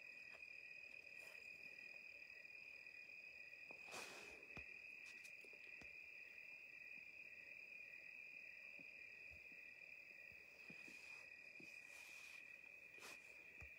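Faint, steady chorus of crickets: one high, unbroken trill, with a couple of soft rustles.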